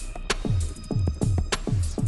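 Background electronic music with a steady beat of deep, falling-pitch kick drums and crisp hi-hat or cymbal hits.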